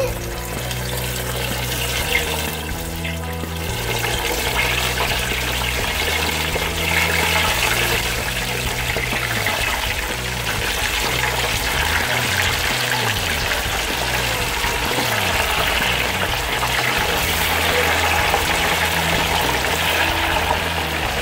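Hot oil in an electric deep fryer sizzling and bubbling hard around pieces of wet, freshly boiled goat meat. It gets a little louder about four seconds in as more meat goes in. Background music with low, sustained chords plays under it.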